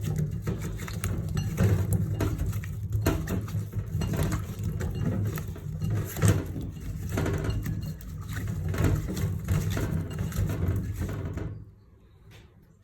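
Cut raw cassava pieces being mixed by hand in a bowl with salt and turmeric: a dense, irregular clattering and rustling of many pieces that stops abruptly about a second before the end.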